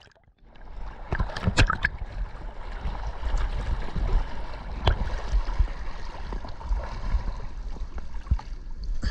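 Sea water sloshing and splashing close around a camera held at the surface of a choppy sea, over a low steady rumble, with sharp splashes or knocks about a second and a half in and again near five seconds.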